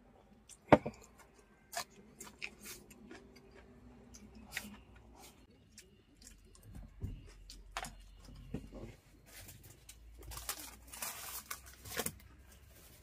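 Eating sounds: chopsticks clicking and tapping against a plastic food container and a metal bowl, with one sharp knock about a second in. A paper tissue rustles near the end.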